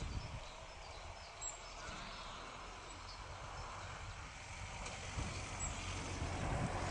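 Outdoor background noise: a steady low rumble and hiss that swells and grows uneven in the last couple of seconds, with a few faint high chirps now and then.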